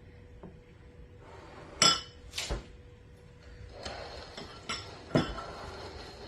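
A utensil clinking against a dish of sugar glaze while the glaze is drizzled onto muffins: a few separate clinks, the loudest about two seconds in and again near five seconds.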